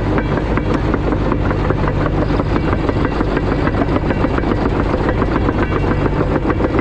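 CAT D5 crawler dozer's diesel engine running steadily, with a rapid, even clatter.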